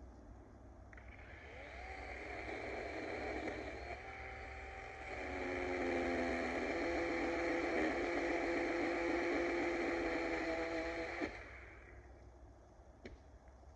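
DeWalt 20V battery chainsaw's electric motor whining up to speed with a rising pitch, then running louder and lower in pitch for about six seconds as it works under load. It cuts off sharply near the end and winds down.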